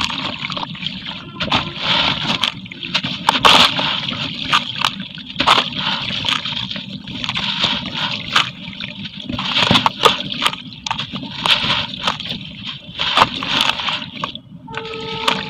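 Charcoal concrete crumbling in water: a continuous hiss broken by many sharp crackles. A brief steady tone sounds near the end.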